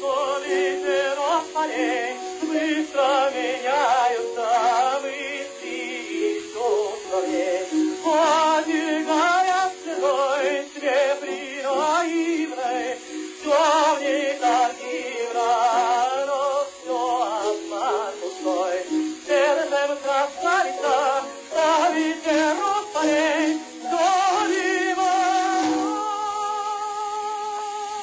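Classical vocal music: a singer with vibrato over instrumental accompaniment, ending on a long held note.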